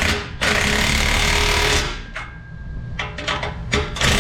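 A handheld power tool run in a burst of about a second and a half, then a few sharp clicks or knocks, then a second burst starting near the end.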